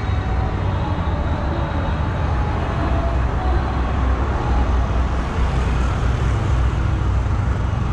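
Steady low rumbling outdoor noise with no firework bursts.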